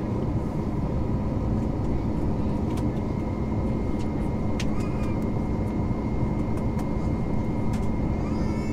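Steady cabin noise of an Airbus A321neo in flight: a constant rumble of engines and airflow with a low hum and a faint high whine, and a few light clicks partway through.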